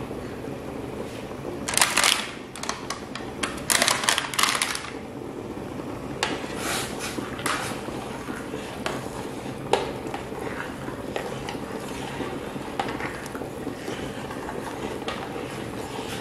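A metal spoon stirring liquid in a stainless steel pot, scraping and clinking against the pot. The clatter comes in a few rougher bursts in the first five seconds, then sparse clinks, over a steady low hum.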